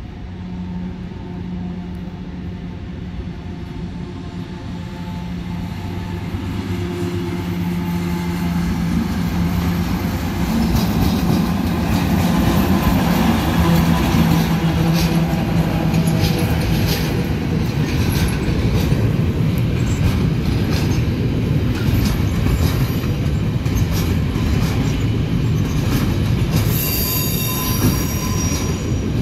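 Fenniarail diesel locomotive approaching with a steady engine hum that grows louder, then running past hauling a freight train of covered wagons, the wheels rumbling and clicking on the rails. The wheels give a high squeal near the end.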